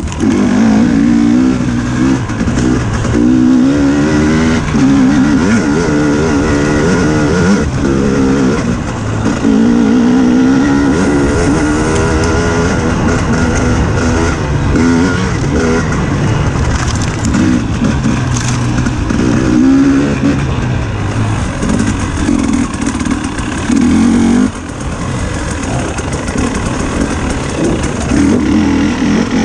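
Dirt bike engine running hard on a trail, its note climbing and falling again and again as the throttle is opened and rolled off, with a brief let-off about three quarters of the way through.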